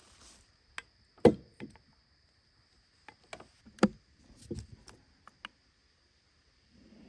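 Knocks and clicks of a portable electric kettle being set down on a wooden picnic table and its power cord being handled and plugged into a portable power station's AC outlet. There are a handful of separate knocks and clicks, the loudest about a second in and another strong one near the middle.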